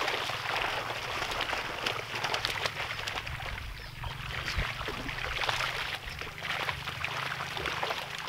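Shallow pond water sloshing and splashing continuously as people wade through it hauling a seine net, with many small clicks and splashes in the mix.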